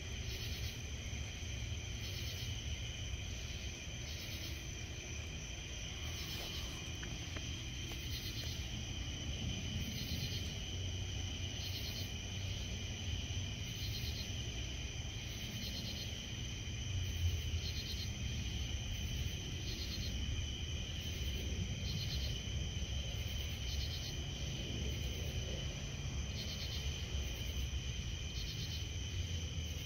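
Night insect chorus: a steady high trill with chirps pulsing about once or twice a second, from crickets and katydids. A low rumble runs underneath, swelling a little midway.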